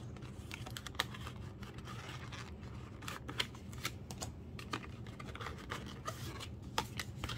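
Paper and plastic packaging being handled: a busy run of rustling, scraping and crinkling, with a few sharp clicks, as album contents and photocards are unpacked and sorted by hand.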